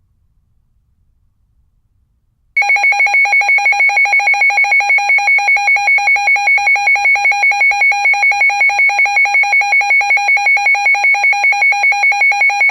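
A weather radio receiver's alert alarm, switching on suddenly and beeping in a rapid, loud, high-pitched pulse, about four beeps a second, sounding for a Special Marine Warning.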